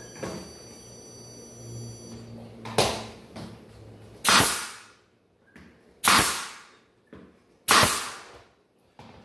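Pneumatic nail gun firing four times, about one and a half to two seconds apart, driving nails through baseboard trim into the wall, with lighter clicks as it is repositioned between shots.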